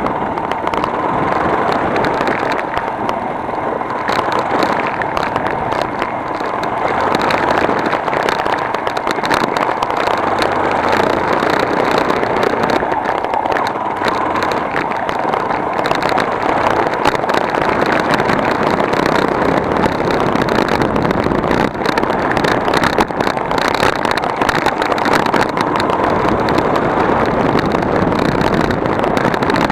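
A vehicle on the move: a loud, steady running noise with many small knocks and rattles throughout.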